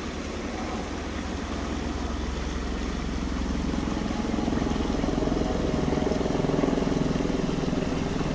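Helicopter circling overhead, its rotor whirring with a steady low beating, growing steadily louder.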